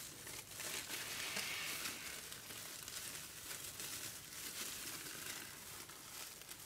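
Continuous crinkling and rustling of thin plastic gloves, foil pouch and separator film as hands peel apart the wound layers of a dismantled LiPo cell, a little louder in the first couple of seconds.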